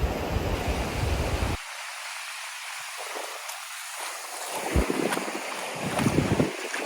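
Sea surf washing onto a beach, a steady rushing hiss. Wind rumbles on the microphone for the first second and a half and gusts again briefly near the end.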